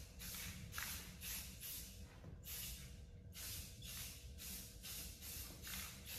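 Clear coat being sprayed onto a restored headlight in a run of short hissing bursts, about two a second, with one longer pass about halfway through.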